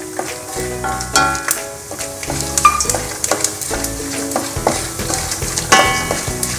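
Peanuts and lentils sizzling as they fry in a little coconut oil in a stainless steel pan, with a wooden spatula stirring and scraping them around. Background music plays along.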